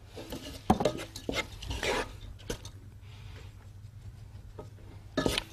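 Wooden spatula stirring rice in a cooking pot, scraping and knocking against the pot with a few sharp knocks, loudest near the end.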